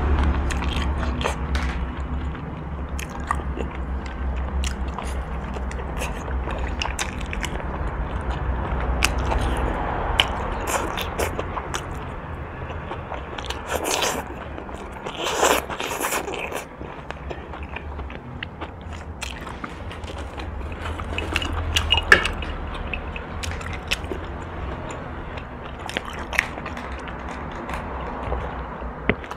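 Close-miked eating sounds: biting and chewing meat and gristle off boiled pork bones, with wet mouth clicks, and a few louder crunchy bites of fresh greens about halfway through. A low steady hum lies underneath.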